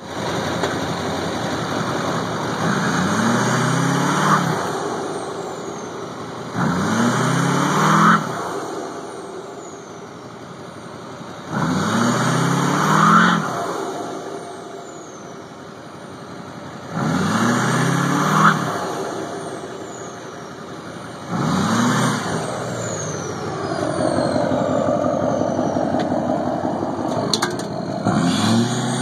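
2006 LBZ Duramax 6.6-litre V8 turbodiesel with a straight-pipe exhaust, free-revving about six times with a few seconds at idle between. Each rev climbs for a second or two, and the Garrett turbo's whistle falls away in pitch as the revs drop.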